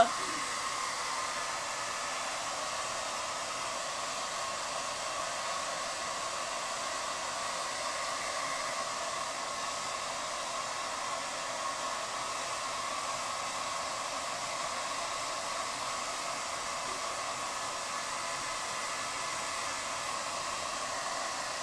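Handheld hair dryer running steadily, blowing a freshly bathed dog's coat dry: a constant rush of air with a faint whine in it.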